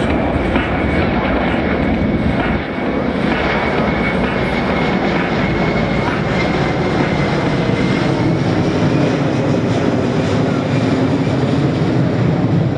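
C-17 Globemaster III's four Pratt & Whitney F117 turbofan engines running during a flying display, a loud, steady jet rumble with a thin high whine over it.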